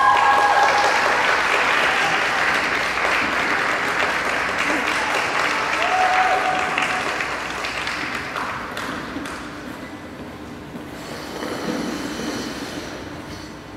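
Audience applauding, with a few shouts and cheers from the crowd; the clapping thins out and dies away about ten seconds in.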